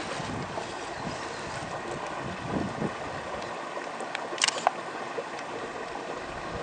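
Shallow brook water running steadily, with a short cluster of sharp clicks a little past halfway.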